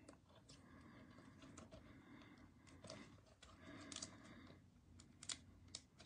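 Near silence, with a few faint plastic clicks and taps as a sleeved trading card is pushed into a rigid plastic toploader.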